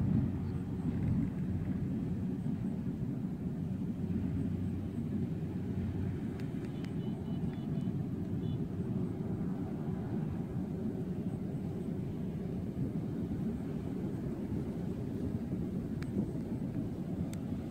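Rice combine harvester's engine running, a steady low drone.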